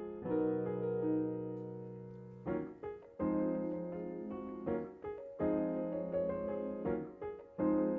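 Background music: a piano playing slow chords, each struck and left to fade before the next, a new one every second or two.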